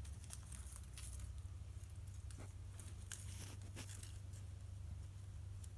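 Faint crinkling and rustling of wide copper foil tape being worked and pressed down by fingers over the rim of a stained glass lampshade opening, with scattered soft crackles.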